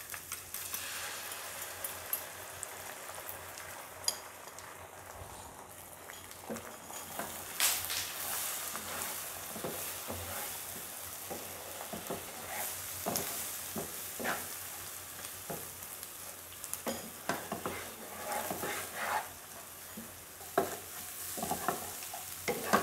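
Beaten eggs frying and sizzling in oil in a non-stick frying pan, while a wooden spatula repeatedly scrapes and stirs them through the fried chicken and onion as they set and scramble.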